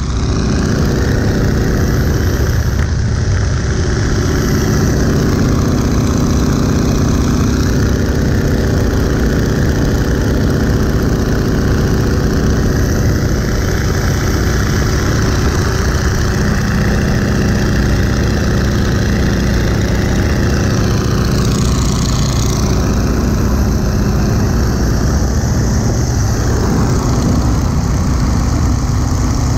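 1941 Boeing Stearman biplane's radial engine running steadily in cruise, a loud even drone with a rush of wind over the open cockpit. The wind hiss briefly swells about two-thirds of the way through.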